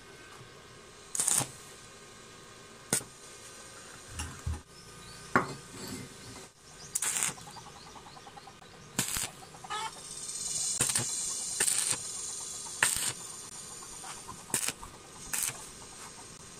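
Scattered sharp metal clinks and taps as a steel plate is set under a bench grinder's base and a stick-welding electrode holder is brought against it, with a short hissing crackle about ten seconds in.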